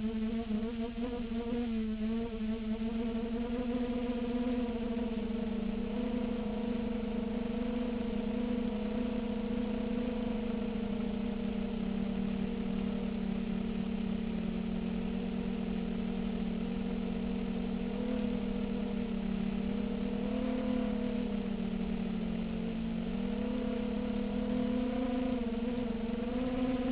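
A 250-size FPV quadcopter's four brushless motors (RCX H1806 2400kv) and 5-inch propellers buzzing steadily in flight. The pitch wavers up and down with throttle and dips briefly about two-thirds of the way in.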